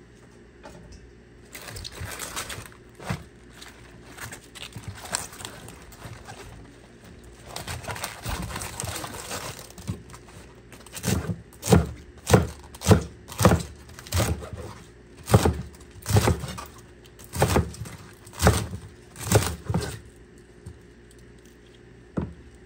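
A knife chopping on a cutting board: about a dozen sharp, evenly spaced strikes, a little under one a second and a half, with rustling and crinkling before them.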